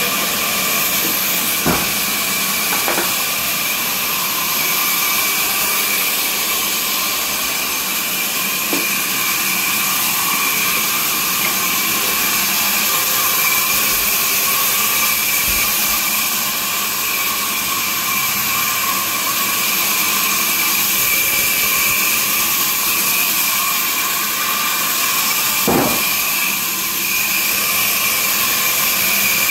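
Sawmill machinery running steadily with a loud, even hissing whirr, and a brief knock about two seconds in and another near the end.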